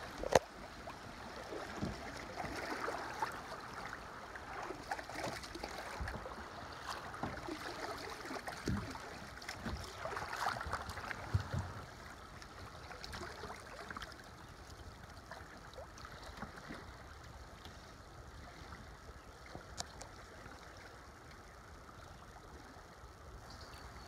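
River water running over shallow riffles around a kayak, with scattered small splashes and knocks and one sharp knock just after the start. The water sound eases off about halfway through.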